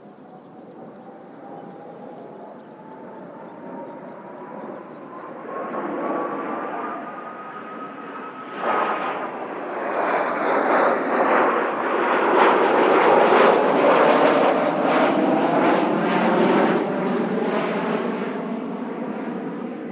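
Kawasaki T-4 jet trainers of the Blue Impulse team flying past, a jet rush with a slowly rising whine. About nine seconds in it turns suddenly much louder as they come close, peaks a few seconds later, then eases off.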